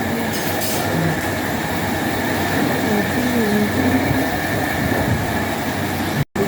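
Steady mechanical running noise with a constant high whine, and faint voices in the background; the sound drops out for a moment near the end.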